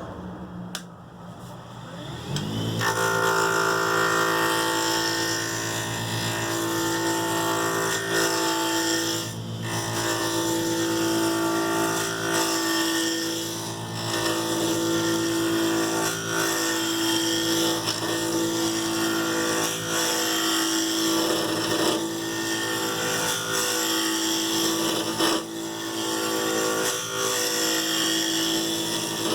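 Wood lathe motor spinning up about two seconds in, then running steadily while a gouge cuts the square corners off a laminated handle blank, a rough cutting noise over the motor's hum.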